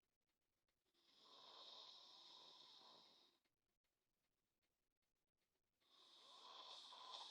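A sleeping person snoring: two long snores, one starting about a second in and another near the end, each lasting a couple of seconds with a quiet pause between.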